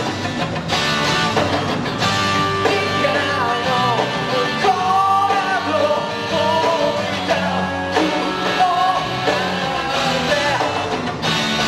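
Live rock band playing: a male lead singer sings over electric guitars, bass and a drum kit.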